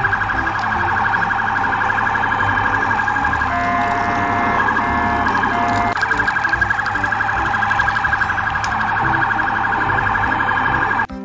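Toy police car's electronic siren sounding a fast, steady warble that cuts off suddenly near the end, with a few short beeps over it around the middle.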